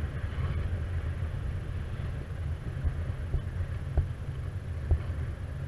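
Wind buffeting the camera microphone during paraglider flight: a steady low rumble from the airflow, with a couple of short knocks about four and five seconds in.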